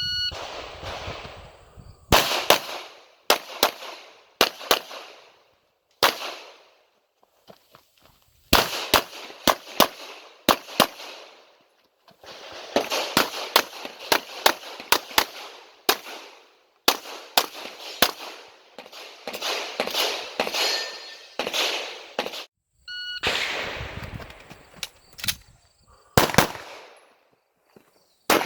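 Glock 17 9mm pistol firing in quick strings of shots, mostly pairs and short runs, with brief pauses between strings. A shot timer's start beep sounds right at the start.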